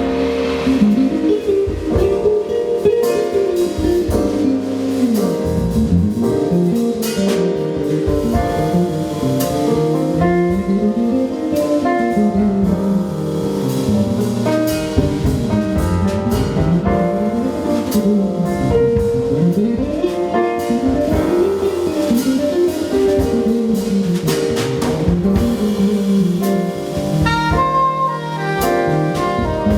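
Live jazz band playing: soprano saxophone and drum kit over keyboards, with a repeating figure that runs up and down in the lower register.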